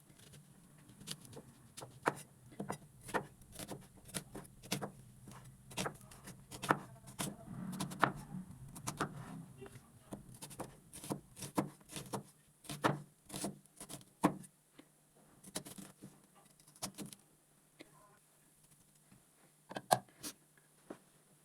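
Faint, irregular clicks and knocks of kitchen prep work, such as utensils or a knife on a board, about one to three a second. A low steady hum runs underneath and stops about two-thirds of the way through.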